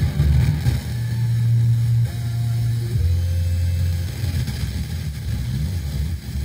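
Music received from an FM radio station on a TEF6686 tuner, led by a bass line of long held low notes, with hiss above it.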